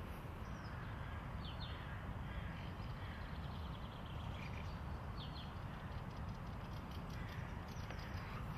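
Crows cawing over a steady low city rumble, with two short high bird chirps, one about a second and a half in and one about five seconds in.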